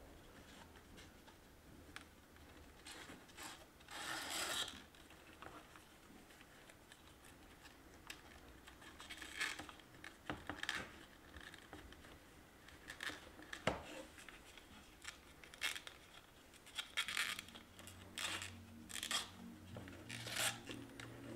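Faint, irregular rubbing and scraping strokes from hand work on a workbench, each lasting a fraction of a second. Soft music comes in near the end.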